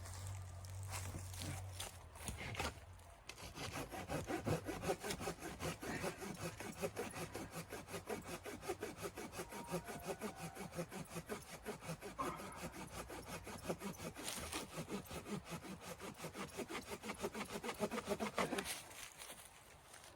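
Hand saw cutting through wood in quick, even back-and-forth strokes, starting about three seconds in and stopping about a second before the end.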